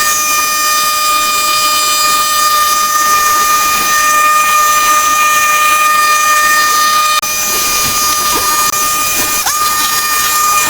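A steady, horn-like tone held without a break over a hiss, with a short upward slide in pitch near the end.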